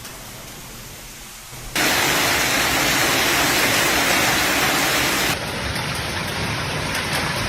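A storm's heavy downpour: a quieter rain hiss that cuts abruptly about two seconds in to a loud, steady rush, which changes abruptly again to a slightly quieter rushing noise about five seconds in.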